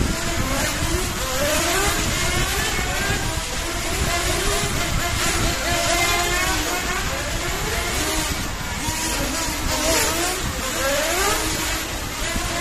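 Electric 1/10 RC touring cars running on a track, led by an XRAY T4-2020: their motors whine, the pitch sweeping up and down again and again as the cars accelerate and brake. Several whines at different pitches overlap.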